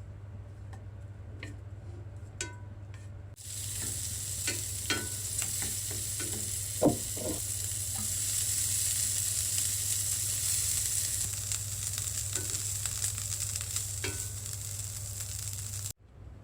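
Food frying in hot oil: a steady sizzle that starts suddenly about three seconds in, with a few clicks and knocks of a utensil, and cuts off abruptly just before the end. Before the sizzle, only a few light clicks.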